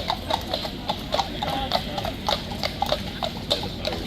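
Hooves of several horses clip-clopping on hard ground, a quick irregular patter of overlapping strikes, typical of a mounted column walking past.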